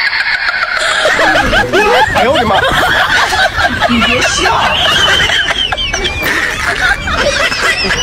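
Laughter from many voices at once: a dense, continuous stream of overlapping snickers and chuckles.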